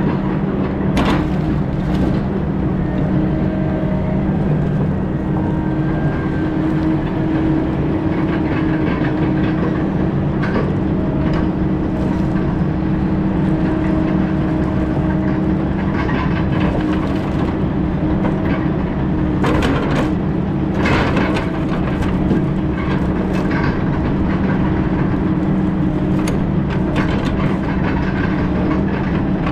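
Diesel engine of a heavy logging machine running steadily under load, with scattered sharp cracks and knocks, a cluster of them near two-thirds of the way through.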